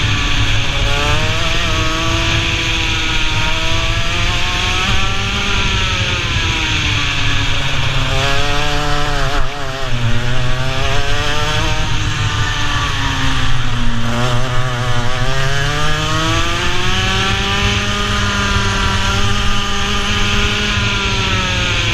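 Racing kart's two-stroke engine heard onboard at full racing pace. The revs climb steadily along the straights and drop away into the corners several times, most sharply about nine seconds in and again around fourteen seconds.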